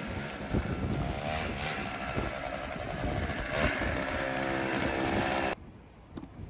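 A motor vehicle engine running close by amid street noise, its pitch shifting. It cuts off abruptly near the end, leaving a much quieter background with light wind.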